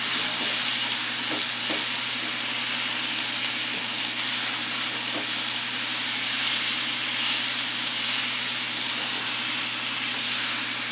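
Pork belly cubes and chopped garlic sizzling steadily in oil in a steel wok over a gas flame, stirred with a spatula; the pork is giving off its water as it browns. A steady low hum runs underneath.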